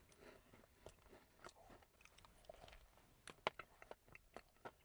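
Faint close-up chewing of a strawberry shortcake cheesecake donut: soft crunches of its hard shortbread cookie topping and wet mouth clicks, scattered irregularly, the loudest about three and a half seconds in.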